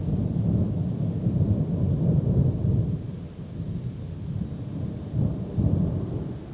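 Thunder rolling: a low rumble that comes in suddenly, stays loud for about three seconds, eases, then swells again about five seconds in.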